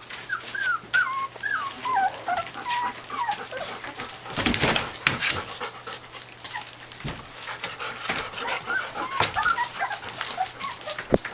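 Young puppies whimpering and squeaking in many short, high calls that slide up and down, clustered in the first few seconds and again near the end. A brief burst of louder scuffling noise comes about four and a half seconds in.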